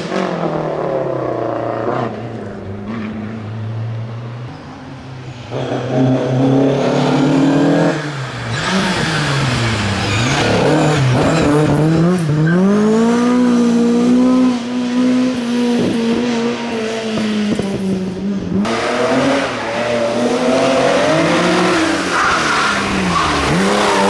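Classic rally car engines at full throttle, one car after another. The pitch climbs and falls sharply with gear changes and lifts, and is held at high revs for several seconds midway.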